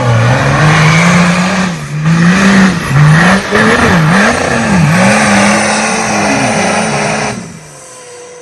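Off-road vehicle engine revving hard under load, its pitch climbing and dropping several times as the throttle is worked, then falling away suddenly near the end.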